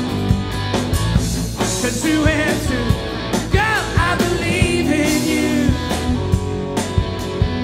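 Rock band playing live: electric guitar on a lead line with bent, wavering notes over drums and bass.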